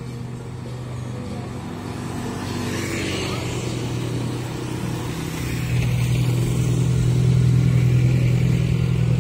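Street traffic: a car and motorcycles driving past, with engine and tyre noise. A low engine hum swells louder over the second half as another vehicle draws near.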